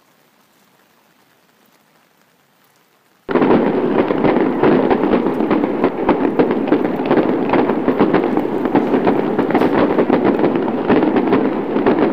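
Heavy downpour sound effect: dense crackling rain noise that starts abruptly about three seconds in, after a faint stretch, and cuts off suddenly near the end.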